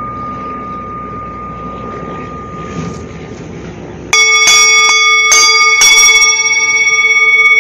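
A singing bowl's single ringing tone slowly dies away. About four seconds in, a bowl is struck with a wooden mallet about five times in quick succession, and its layered tones ring on and swell with a slight wobble.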